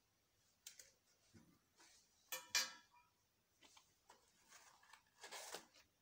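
Steel finger rings clicking and clinking as they are handled and set into a plastic jewellery display tray. There are a few light taps, one sharp ringing clink about two and a half seconds in, and a short rustle near the end.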